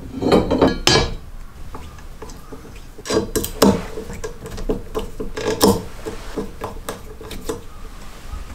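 A thin metal base plate clanking and scraping as it is set down on an angle grinder's gear head, then a run of small metallic clicks and clinks, the plate ringing, as its screws are driven in by hand.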